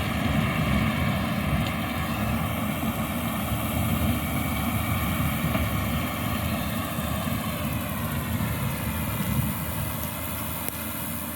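Skid-steer with a rotary mower attachment running steadily: an even engine drone with a whirring hum. The pitch sags slightly around eight seconds in, then recovers.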